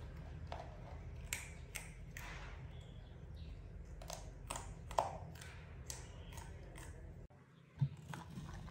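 Baby macaque chewing carrot slices: irregular crisp crunching clicks over a low steady hum. Near the end, one sharp knock as a metal fork stabs a carrot slice on the plate.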